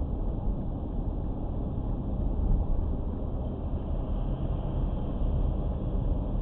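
Steady low rumble of road and engine noise inside a car driving at about 55 km/h, picked up by a dashcam microphone.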